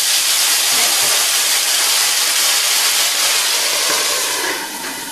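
Water poured into a hot pan of browned pot stickers hissing and sizzling loudly as it flashes into steam, the steaming stage that follows the browning. The hiss quietens a little near the end as the lid goes on.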